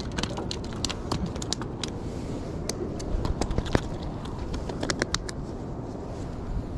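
A quick, irregular run of light clicks and taps: handling noise as hands work a microfiber towel and a just-landed corbina on the wooden pier deck, over a steady low background noise.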